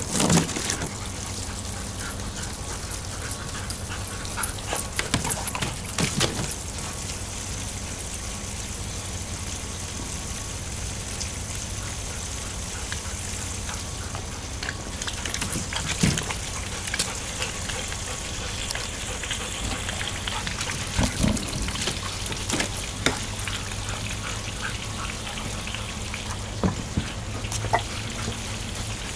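Garden hose water running steadily into a kiddie pool, with two dogs splashing and making short dog sounds every few seconds.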